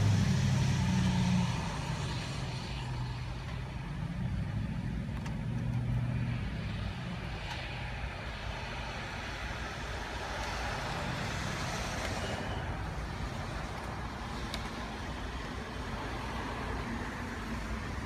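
Motor vehicle engine running, louder and deeper for the first second and a half, then a steadier, quieter hum with road-like noise.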